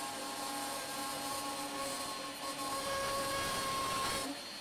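Handheld micro router with a small electric motor, its bit cutting into a chipboard sheet: a steady whine over the grinding of the cut. The cutting noise stops abruptly near the end, leaving the motor running more quietly.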